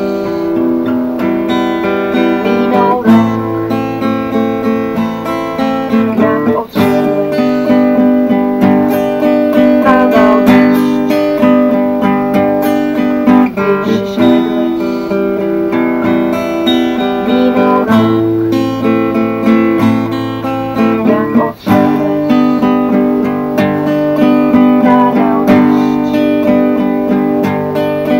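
Acoustic guitar playing a ballad accompaniment, chords plucked and strummed in a steady rhythm.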